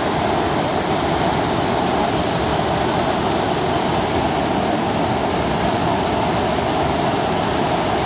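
Fast stream rapids cascading over rocks below a waterfall: a loud, steady rush of water.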